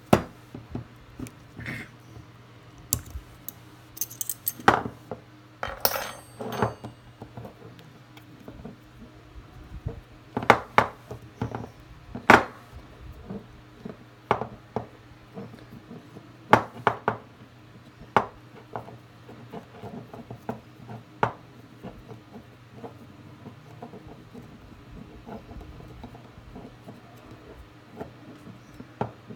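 Steel parts of a Chilean 7mm Mauser rifle bolt clicking and clinking as it is handled and taken apart, in irregular sharp knocks with short pauses between.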